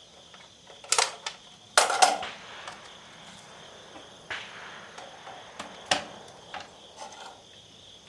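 Sharp mechanical clacks and clicks from a Centurian BP12 12-gauge bullpup shotgun being handled between loads, the loudest a double clack about two seconds in. Crickets trill steadily behind it.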